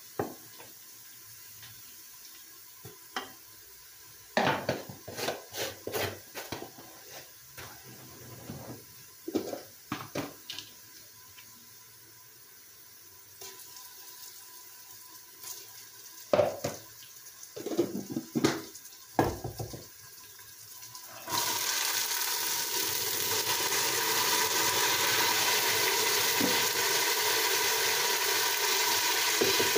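A wooden spoon knocking and scraping as tomato and pepper paste is scooped from a jar and a plastic tub into an aluminium pressure-cooker pot, in a series of short taps and clicks. About two-thirds of the way in, a steady rushing noise starts suddenly and carries on, louder than the taps.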